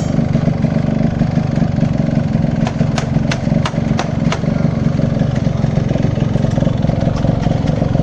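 Yamaha RX 135's two-stroke single-cylinder engine idling steadily, with a run of about six sharp ticks a few seconds in.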